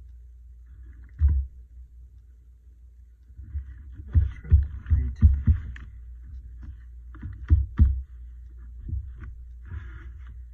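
Hands handling paper on a tabletop: soft paper rustling and a series of dull knocks, one about a second in, a quick run of them around four to six seconds, and two more near eight seconds, over a steady low hum.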